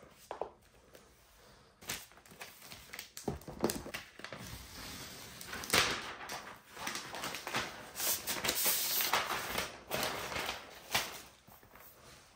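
Rustling and crinkling of packaging, with scattered clicks and knocks, as a laptop is handled and unwrapped; the rustling is loudest about six seconds in and again from about eight to ten seconds.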